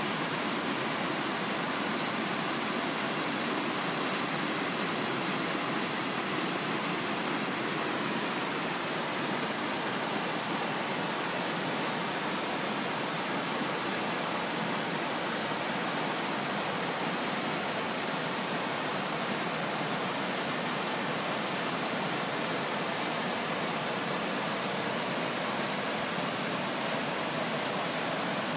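Large waterfall, the Hirayu Great Falls, with a steady, unbroken rush of falling water.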